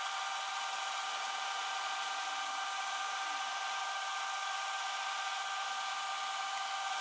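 VCR deck of a Philips DVD755VR DVD/VCR combo fast-winding a VHS cassette: a steady motor whine with several fixed pitches over a hiss.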